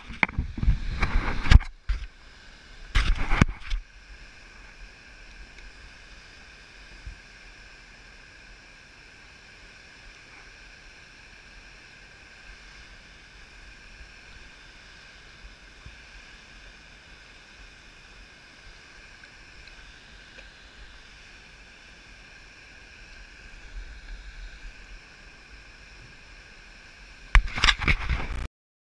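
Loud knocks and rubbing of a body-worn camera being handled, in two bursts in the first few seconds and again near the end. In between is a steady, quiet rush of water.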